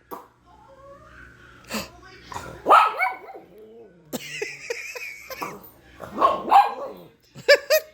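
Dog giving several short yips and barks, the loudest about a third of the way in and again near the end.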